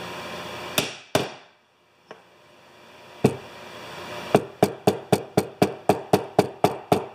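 Claw hammer tapping oak plywood plugs into bolt holes in a wooden vise jaw. There are two strikes about a second in and a single tap a couple of seconds later, then a quick, even run of light taps, about four a second, in the second half.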